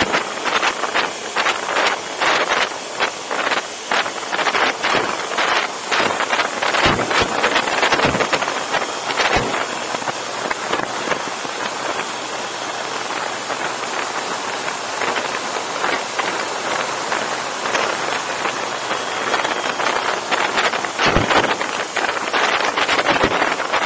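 Wind rushing and buffeting over the microphone of a camera mounted on a moving motorcycle, gusty through the first ten seconds and again near the end, steadier in between, with the motorcycle's engine a faint hum beneath.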